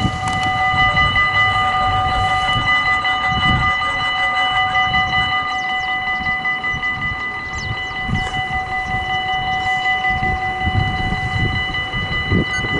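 Level-crossing warning bell ringing steadily and without a break while the red lights flash and the barriers lower, signalling that a train is approaching. An uneven low rumble runs underneath.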